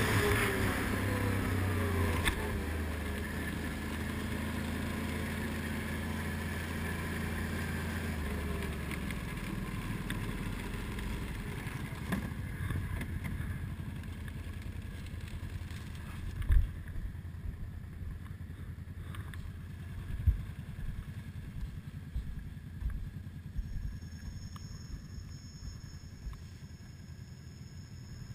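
ATV engine running, with wind and gravel noise, easing off over the first eight or nine seconds. It then runs quieter, with a few sharp thumps as the quad rolls across a wooden bridge deck.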